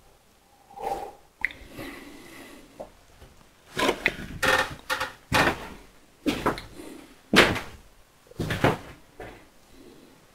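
A string of knocks and thumps, a few early on, then a quick run of them through the middle and later part, as of things being handled or shut.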